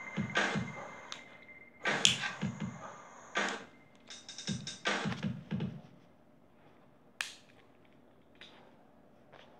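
Electronic-sounding music with rhythmic pulses that stops about six seconds in, leaving quiet room tone broken by one sharp click.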